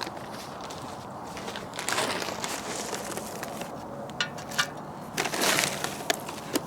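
Hickory wood chips being handled for the smoker: bursts of rustling and crunching, with a few sharp clicks and taps.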